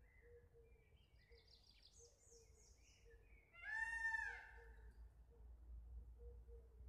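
A single loud, nasal call from a peafowl about three and a half seconds in, lasting under a second and dropping at the end, over faint chirps of small birds.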